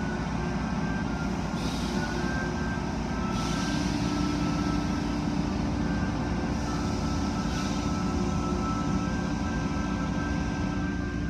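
Automatic car wash tunnel equipment running: a steady hum of motors and pumps with a few steady whines over it, and short bursts of hissing spray several times.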